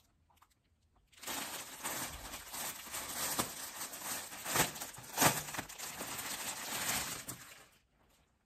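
Clear plastic bag crinkling and rustling as a microfiber spin-mop head is pulled out of it by hand. It starts about a second in and stops shortly before the end.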